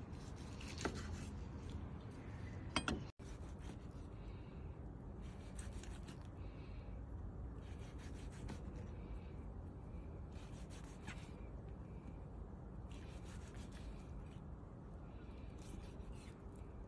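Chef's knife slicing through cooked steak on a wooden cutting board: short scraping strokes through the crust and meat every second or two, with a couple of sharp knocks of the blade on the board shortly before three seconds in.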